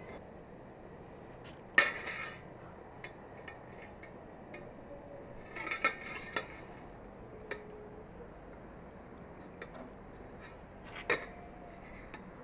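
Metal kebab skewers clinking as marinated beef is threaded onto them: a few sharp, short ringing clinks, the loudest about two seconds in, a small cluster around the middle and another clink near the end.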